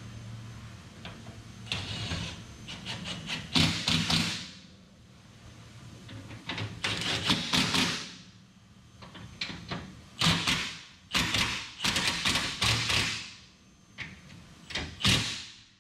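A cordless impact driver runs bolts into an aluminum skid plate under a car in about eight short bursts, each under a second long, with pauses between them.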